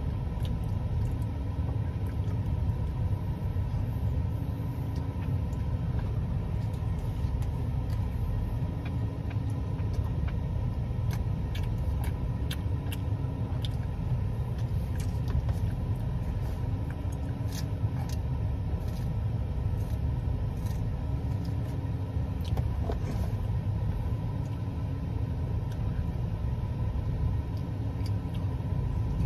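Chewing and wet mouth clicks from someone eating roast beef, scattered over a steady low rumble with a slow, even swell every second and a half or so.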